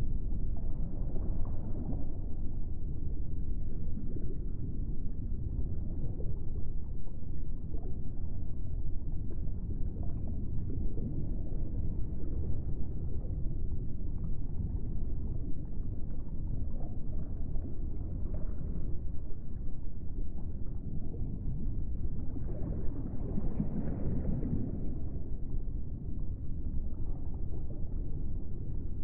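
Steady low rumbling ambient drone from a soundtrack, swelling briefly late on.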